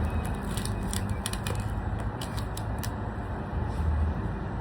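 Blackstone propane griddle burners running with a steady hiss and low rumble, with a string of light clicks and knocks during the first three seconds.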